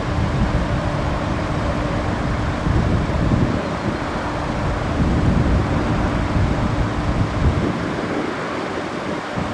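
Wind buffeting the microphone in uneven gusts, over a steady low mechanical hum.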